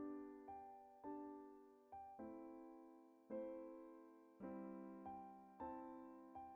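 Solo piano playing a slow, soft melody: single notes and chords struck about every half second to a second, each ringing and fading before the next.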